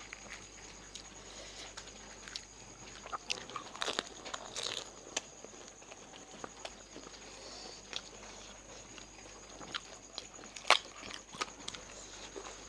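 Fuchka (pani puri) being eaten: crisp, hollow puri shells crunching between the teeth, with wet chewing, in scattered crunches. The loudest crack comes late on.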